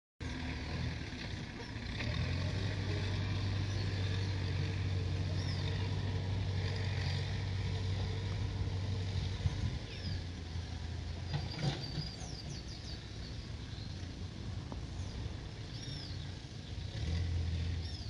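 Diesel engines of backhoe loaders running, a steady low rumble that is strongest for the first several seconds, eases off around ten seconds in and swells again near the end, with a few short high chirps over it.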